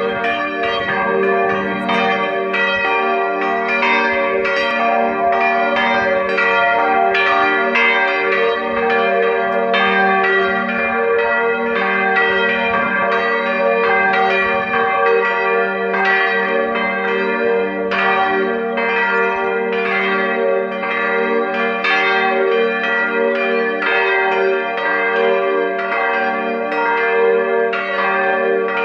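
Church bells pealing: several bells struck in quick succession, about two strikes a second, their tones ringing on and overlapping into a steady hum.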